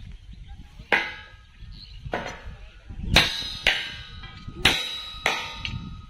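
Hammer blows on a steel railway rail and its fittings at the concrete sleepers: about seven sharp metallic clangs, each ringing briefly, coming closer together in the second half.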